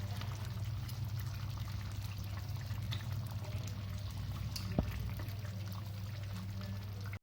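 Dal simmering in a pan on a gas stove, soft bubbling over a steady low hum, with one sharp knock about five seconds in.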